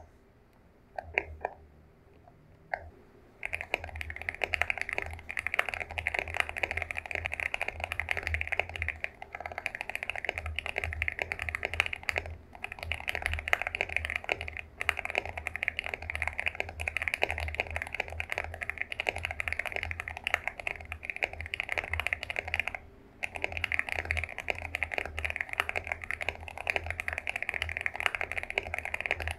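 Typing on an Epomaker mechanical keyboard with Wisteria linear switches: a few single keystrokes at first, then a long run of fast, continuous key clicks, broken by one short pause about two-thirds of the way through.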